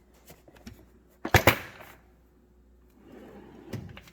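Rummaging through a metal toolbox drawer: light clicks of tools being moved, then one sharp metallic clack with a brief ring about a second and a half in, and softer shuffling and small clicks near the end.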